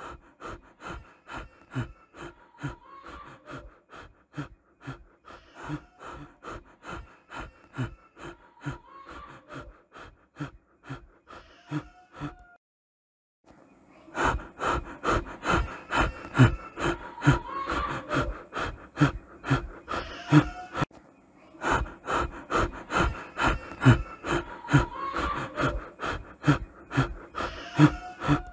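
A man panting hard as he runs, in short gasping breaths about two a second. The panting breaks off for a moment partway through and comes back louder.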